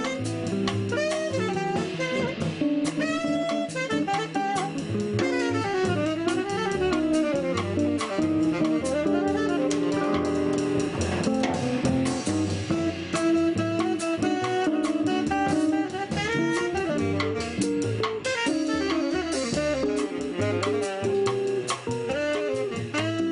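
Small jazz combo playing live: saxophone lead over archtop guitar, upright bass and drum kit, with fast melodic runs rising and falling.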